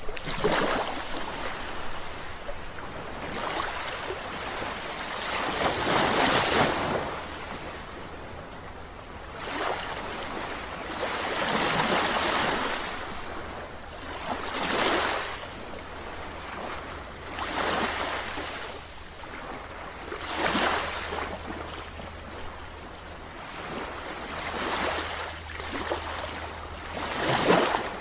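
Sea waves breaking and washing up a beach, one surge after another every few seconds, over a steady low rumble of surf.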